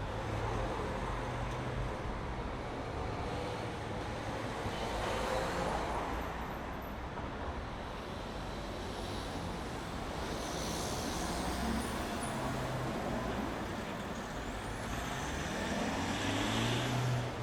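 City street traffic: cars and heavier vehicles such as buses and trucks passing, with a steady low engine hum that swells several times as vehicles go by.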